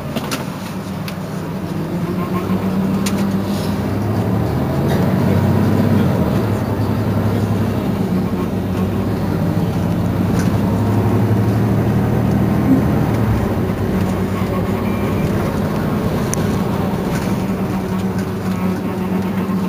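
Mercedes-Benz Citaro C2 city bus engine idling while the bus stands still, a steady low hum that grows louder over the first few seconds and shifts in pitch about thirteen seconds in.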